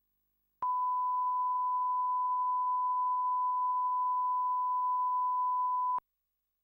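Broadcast line-up test tone, the 1 kHz reference tone that goes with colour bars: one steady pitch that starts about half a second in and cuts off suddenly about six seconds in.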